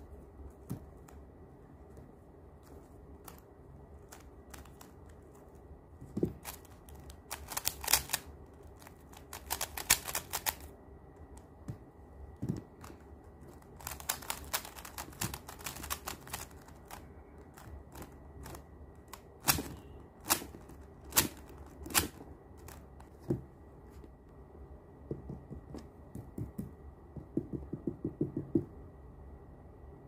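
Plastic clicking and clacking of a stickerless 3x3 speed cube being turned quickly by hand, coming in bursts of rapid turns separated by short pauses.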